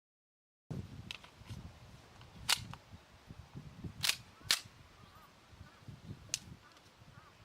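Marushin Combat Commander HW model gun firing caps: four sharp pops at uneven gaps, two of them close together near the middle, with a few lighter clicks before them.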